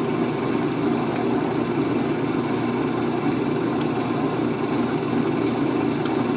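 Washing machine on its spin cycle with a load of wet wool fleece: a steady mechanical hum with vibration. The machine is out of level and shakes as it spins.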